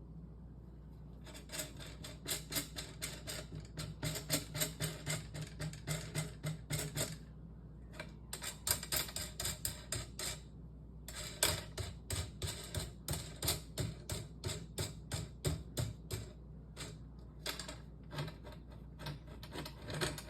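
Runs of quick, light metallic clicks, about three a second, from hand-tool work on a steel wheelchair frame being taken apart, with short breaks about seven and ten seconds in.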